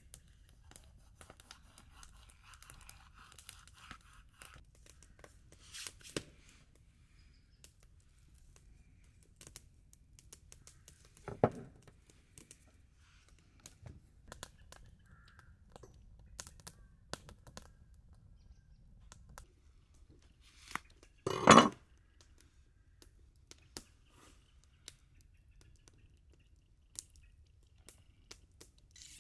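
Scattered food-preparation handling sounds: light clicks and rustling, with two louder brief crunching or tearing noises, about eleven seconds in and, loudest, about twenty-one seconds in.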